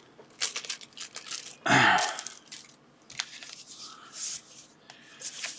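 Plastic packaging and small items being handled: scattered light clicks and crinkles, with one louder rustling burst about two seconds in.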